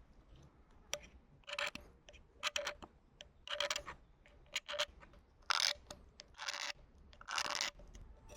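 A series of short scraping strokes by hand, about a dozen of them at an uneven pace.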